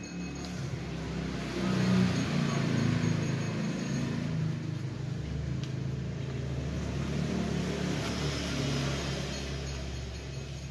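A motor vehicle's engine running nearby, swelling about two seconds in and slowly fading away toward the end.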